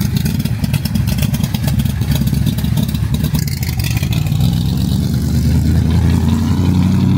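A car engine running loudly, its pitch climbing gradually over the last couple of seconds as it is revved up and held.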